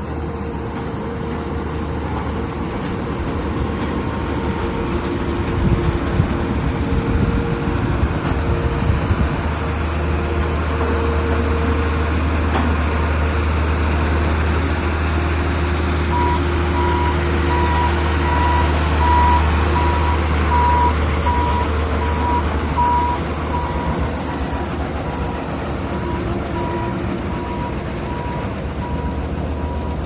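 Ingersoll Rand SD-110D single-drum road roller's diesel engine running steadily as the machine drives and turns. About halfway through, a backup alarm starts beeping evenly and keeps on.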